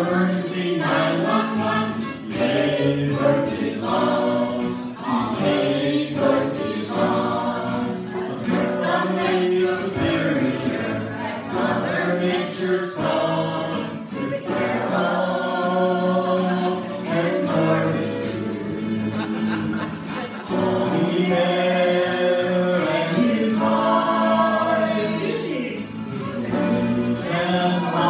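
A group of men and women singing a song together, accompanied by acoustic guitar.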